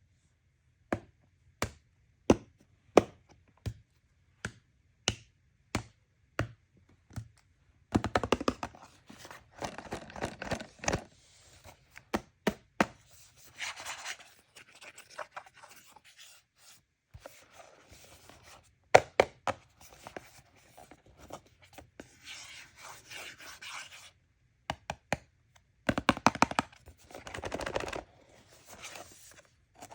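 Hands handling toy packaging at close range: a row of sharp taps about every half second, then stretches of crinkling, scraping and tearing broken by more taps and short pauses.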